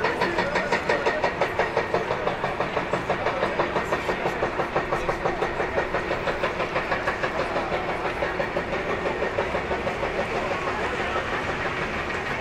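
Busy city street and plaza ambience: a general din of people and traffic, with a rapid, even ticking of several clicks a second running through it.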